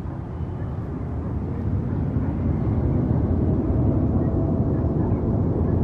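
Airplane coming in low to land, passing out of sight: a deep engine rumble that swells about two seconds in and holds, with a faint tone above it rising slowly in pitch.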